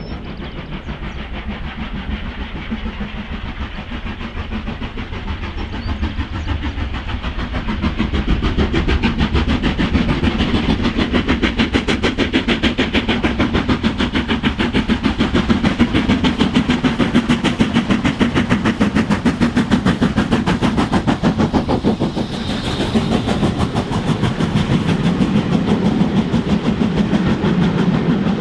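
Steam locomotive working a train: a fast, steady rhythm of beats with running rail noise, growing louder about a quarter of the way in.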